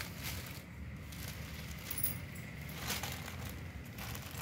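Faint rustling and a few light handling taps from a saree being handled, over a steady low hum.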